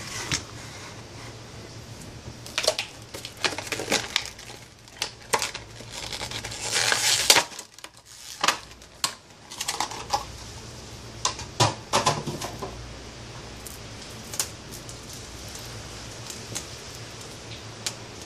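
Handling noise from a Stihl MS 193 chainsaw's plastic body being turned over and set down on a sheet-metal bench: irregular clicks, knocks and a longer scraping rustle about seven seconds in, thinning out after about twelve seconds, over a faint low hum.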